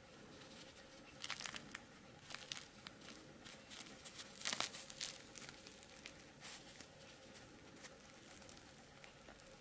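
Fried yeast donut dusted with powdered sugar being squeezed and torn open by hand: faint, irregular crackles and crinkles of the crisp crust, loudest about four and a half seconds in.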